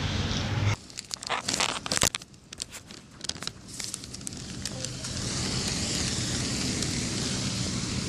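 Crackling, clicking handling noise on a phone's microphone as the phone is turned around in the hand, then a steady rushing outdoor background noise from about halfway through.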